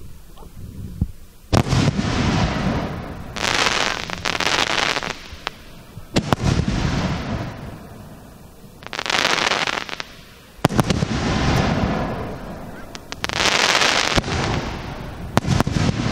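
Aerial firework shells bursting close overhead: four loud bangs, roughly every four to five seconds, each followed by a noisy tail of a second or two, with smaller pops between.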